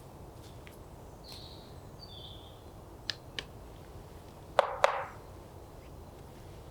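Quiet forest ambience with a short bird call, then two light clicks and two loud sharp cracks close together about two-thirds of the way in.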